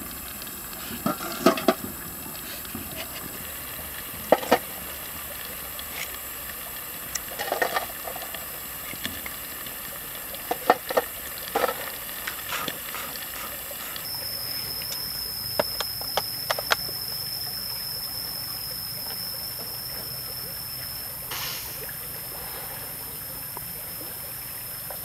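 Scattered clicks, knocks and crackles from a wood fire under a lidded pan and from burning charcoal being set onto the pan's metal lid. About halfway through, a steady high-pitched tone and a low hum come in.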